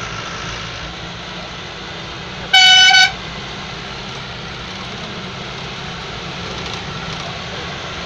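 Steady engine and road noise heard inside a vehicle's cab, with one short horn blast on a single steady note lasting about half a second, a little over two seconds in.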